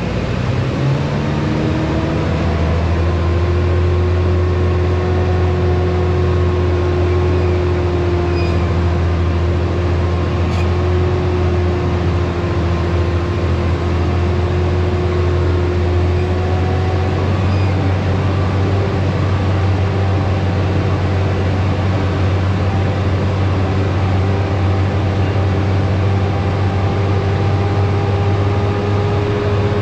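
Diesel engine of a dump truck loaded with rock, pulling steadily uphill: a constant low drone with a pitched note that climbs slowly as it goes.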